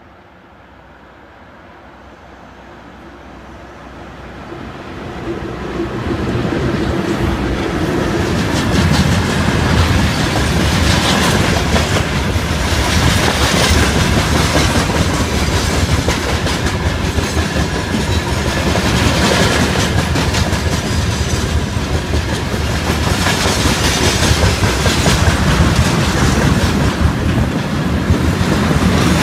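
Soviet VL10 eight-axle DC electric freight locomotive approaching, growing louder over the first six seconds or so, then passing close by. A long freight train of gondola wagons and tank cars follows, rumbling past with a steady clickety-clack of wheels over rail joints.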